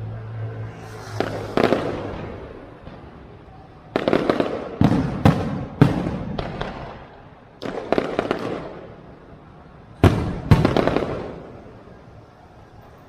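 Aerial fireworks shells bursting: about eight sharp bangs in irregular clusters, each followed by a fading tail. There are gaps of a second or two between volleys.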